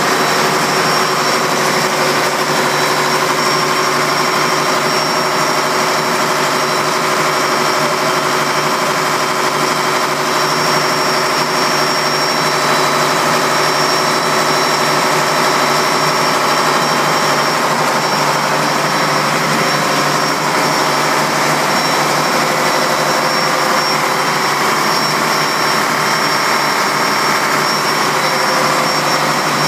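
MaK 6M551AK six-cylinder, four-stroke, medium-speed marine diesel engine running steadily on a test run after its rebuild, heard loud and close in the engine room.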